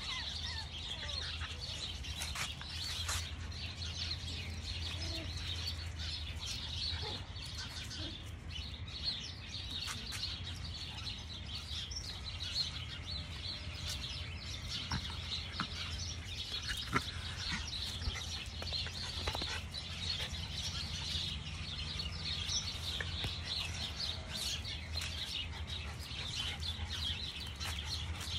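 Many small birds chirping in a steady, continuous chatter, over a low steady hum.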